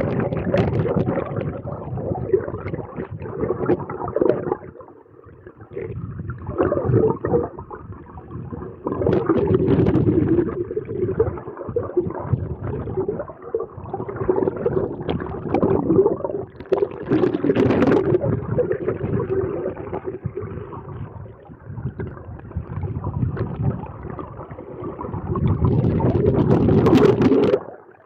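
Shallow river current heard from underwater, muffled by the camera's waterproof housing: a continuous gurgling rumble that swells and fades every few seconds, then cuts off just before the end.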